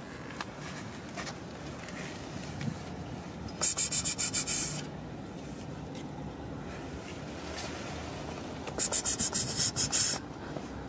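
Rapid scratching strokes on a rough surface, about eight to ten a second, in two short bursts: one a little over three seconds in, the other near the end.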